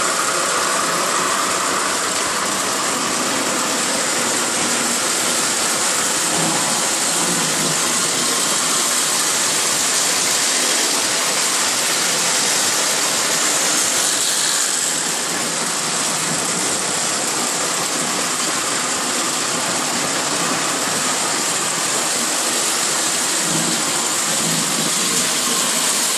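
Lionel O-gauge model trains running on three-rail track: the steady rolling rumble of metal wheels on the rails, mixed with the hum of the locomotive motors.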